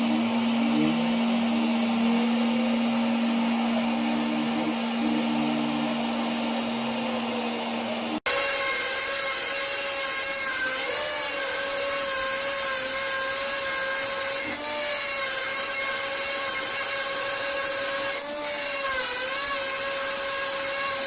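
3-axis CNC router milling a part: a steady spindle whine over cutting hiss. About 8 seconds in the sound breaks off for an instant and returns as a higher whine that wavers slightly as the cut goes on.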